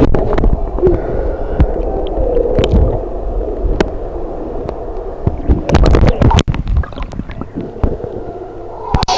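Swimming-pool water heard by a submerged camera: muffled underwater gurgling and sloshing with a low rumble, and scattered clicks and knocks on the camera housing.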